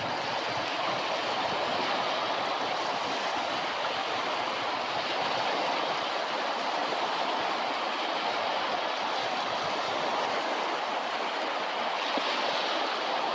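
Ocean surf washing onto a beach: a steady rushing hiss with no distinct breaks.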